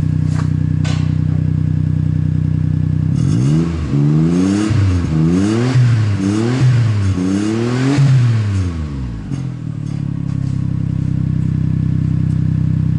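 Daihatsu Atrai engine breathing through an aftermarket muffler, idling, then free-revved about four times to roughly 5000 rpm. Each rev rises and falls in pitch before the engine settles back to idle. The exhaust is loud, peaking around 110 dB on a meter at the tailpipe, and echoes inside a paint booth.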